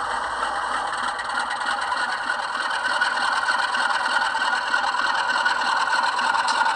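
Bachmann Class 47 model locomotive's sound decoder playing its recorded Sulzer diesel engine through the model's small speaker as the locomotive pulls away. The engine sound grows louder about three seconds in.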